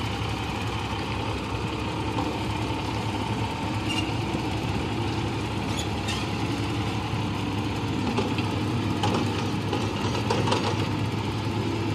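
Crawler bulldozer's diesel engine running at a steady idle, with a few faint clicks and knocks.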